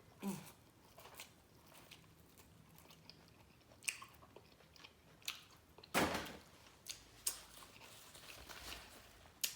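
Close-up chewing and biting of food, with scattered crunchy and wet clicks of the mouth; one sharper bite about six seconds in.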